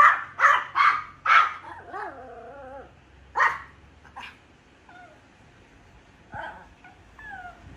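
A dog barking several times in quick succession, then whining in wavering cries between a couple more barks.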